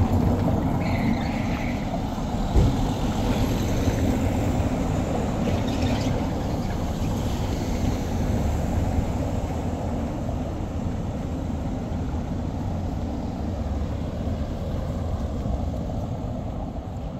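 Town street ambience: a steady low rumble of road traffic, with a car passing close by at the start and a single knock about two and a half seconds in.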